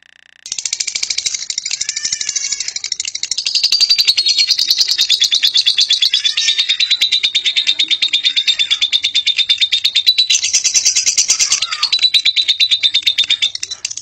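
Fischer's lovebird giving a long 'ngekek': a rapid, unbroken chattering trill of high repeated notes that starts about half a second in and runs for some thirteen seconds, easing off just before the end.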